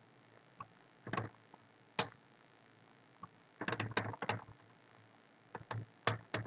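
Computer keyboard keys clicking as code is typed: scattered single taps, then a quick run of several keystrokes a little past the middle, and a few more taps near the end.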